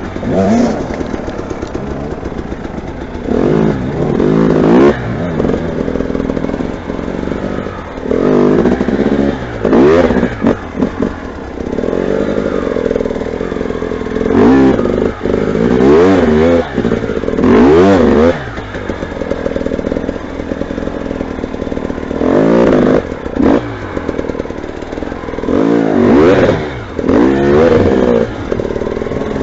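Motorcycle engine revved in repeated bursts of throttle, its pitch rising and falling again every couple of seconds.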